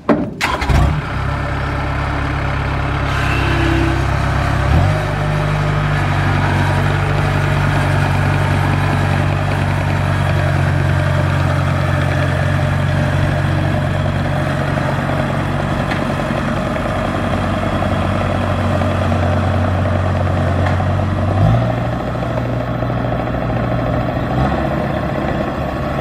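Kubota DC70 combine harvester's diesel engine starts up and runs steadily at a loud level, its note changing about five seconds in and again near the end.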